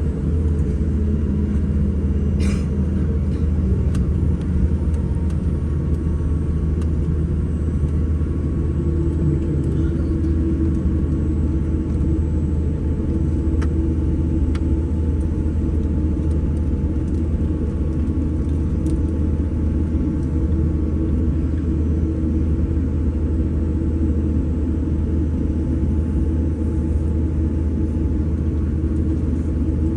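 Steady low rumble of a jet airliner with its engines running at an even, low power before the takeoff roll, heard from inside the cabin; a steady hum joins in about nine seconds in.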